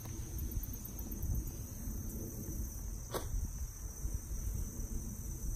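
Steady high-pitched insect chorus, crickets or similar, over a low outdoor rumble, with a single sharp click about three seconds in.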